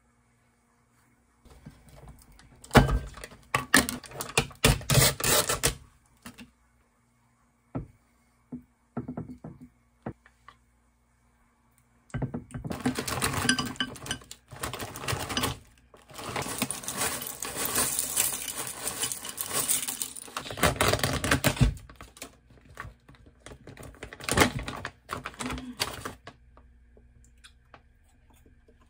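Food-prep handling sounds: a spoon clinking and scraping in a ceramic bowl, a pouch rustling, and frozen blueberries clattering as they are poured into the bowl. There are bouts of rapid clicking and clatter a few seconds in, with the longest stretch of pouring and rustling in the middle, then brief handling noises.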